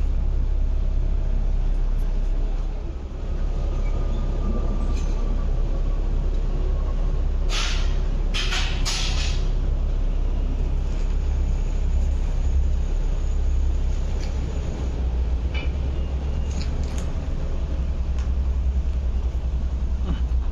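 Road traffic running past with a steady low rumble, with a few sharp clattering knocks about eight to nine seconds in.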